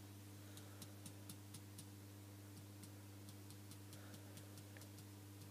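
Faint, even clicking from an iPhone 5, about four clicks a second with a short pause about two seconds in. The phone makes it with nothing running, a fault its owner cannot explain.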